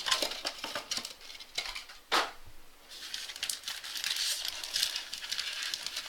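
Foil trading-card pack wrappers crinkling and rustling as a stack of card packs is handled and counted out, with scattered light taps and one sharper crackle about two seconds in.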